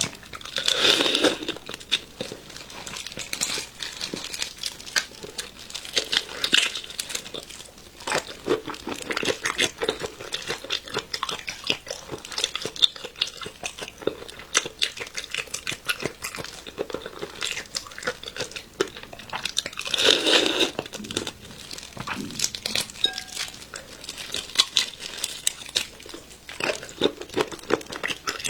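Close-up eating of raw marinated prawns: wet chewing and crackling of the shells, a steady run of small clicks with two louder stretches, one about a second in and one near the twenty-second mark.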